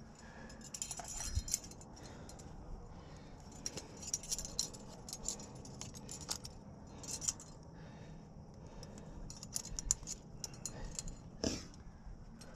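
Metal climbing gear on a climber's harness and rack (carabiners and protection) clinking and jingling in short, irregular bursts as the climber moves.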